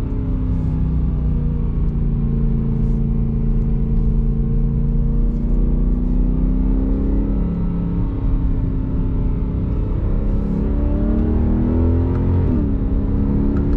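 BMW E90 M3's 4.0-litre V8 running through a full Active Autowerks exhaust (high-flow cats, X-pipe and rear section), heard from inside the cabin while driving in second gear. The engine note is steady and low, drifting gently up and down in pitch, with a brief dip near the end.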